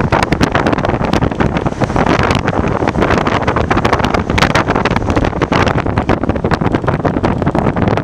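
Wind buffeting the microphone: a loud, uneven rushing noise without pause.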